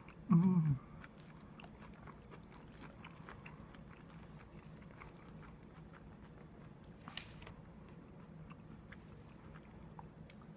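A person quietly chewing food, with many faint small clicks. A brief low voice sound comes about half a second in.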